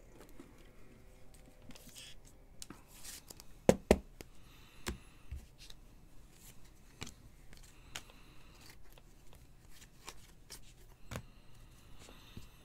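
Trading cards being handled and flipped through: soft slides and small taps of card stock, with two sharp clicks about four seconds in.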